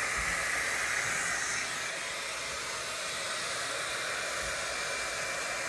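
T3 AireBrush hot-air dryer brush running steadily: an even rush of blown air with a faint high whine from its motor.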